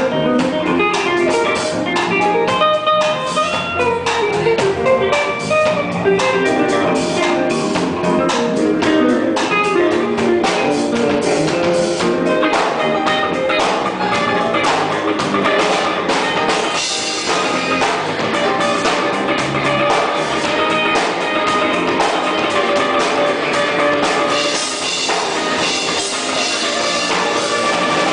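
A gospel orchestra playing an instrumental piece, the music continuous and steady in level.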